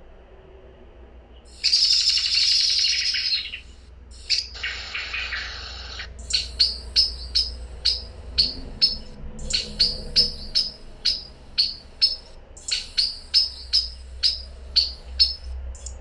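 Male common blackbird calling: a loud harsh burst of chatter, then a second rougher one, then a long run of short sharp calls repeated about twice a second.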